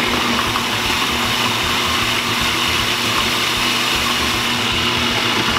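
Food processor motor running steadily, its blade chopping parsley and garlic, a constant hum under a whirring rush.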